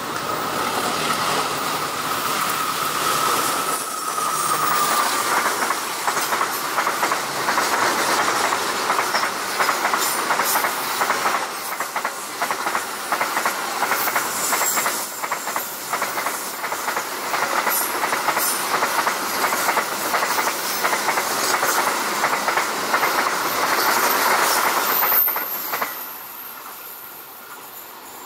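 Diesel-hauled container freight train passing close by: steel wheels clattering over the rail joints as the flat wagons roll past, with a steady high whine in the first few seconds. The noise falls away near the end as the last wagon goes by.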